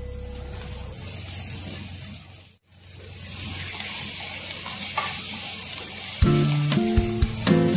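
Vegetables sizzling in a hot wok as baby corn is added and stirred in with a wooden spatula, the sizzle cutting out briefly and swelling again. Background music comes back in about six seconds in.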